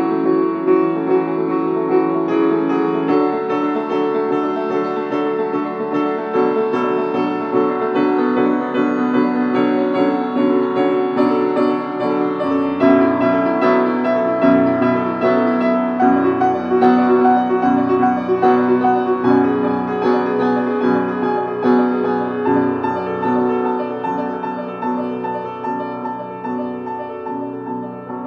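Background piano music, with no other sound above it, growing a little quieter near the end.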